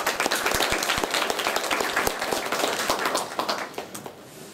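Audience applauding: many hands clapping in a dense patter that thins out and fades near the end.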